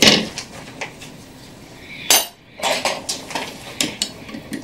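Sharp metal clicks and clinks from a clock mainspring winder as the mainspring is taken off it and the winding arbor is handled, with one louder clank about two seconds in.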